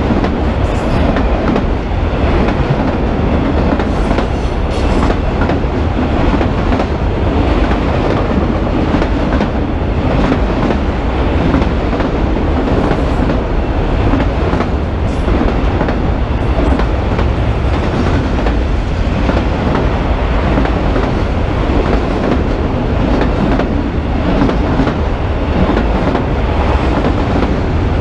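Freight train of autorack cars passing close by at speed: a steady rumble of steel wheels on the rails, with occasional clacks.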